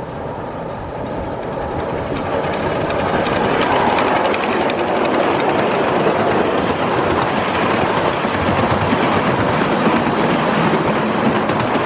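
Ridable 1/5-scale miniature freight train rolling past close by, its wheels making a dense rapid clatter on the rails. The clatter builds over the first three or four seconds and then stays loud.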